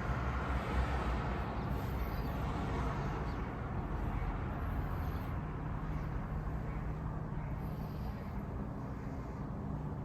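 Steady outdoor background noise: a low, even rumble with a faint hum and no distinct events.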